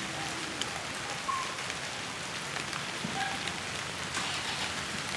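Steady rain falling: an even hiss with scattered drop ticks. A few faint, short high notes come through now and then.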